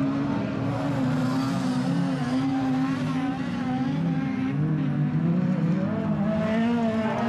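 Several near-stock autocross cars' engines running together, their notes rising and falling as the cars accelerate and lift off.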